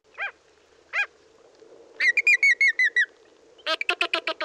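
Andean flamingo calling: two short single calls, then a run of about eight quick repeated notes a little after two seconds in, and a faster, denser run of calls near the end.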